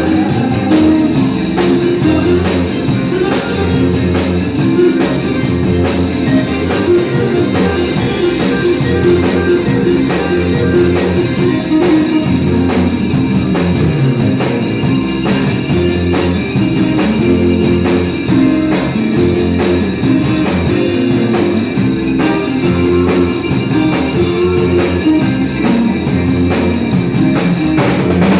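Rock band playing live at a rehearsal: guitar and drum kit together, steady throughout.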